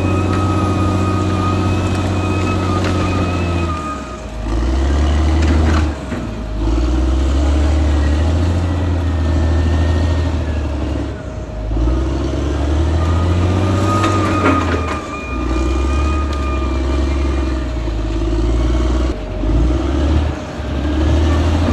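Caterpillar D6R XL bulldozer's diesel engine running under changing load, its sound dipping and coming back every few seconds as the machine works. A steady whine runs over it in stretches, with a few clanks.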